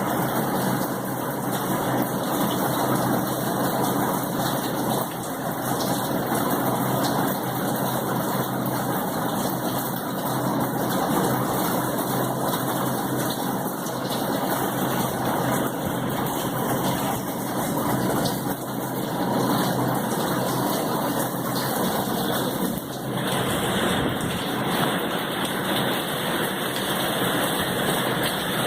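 Rain falling steadily, a dense, even hiss with no breaks.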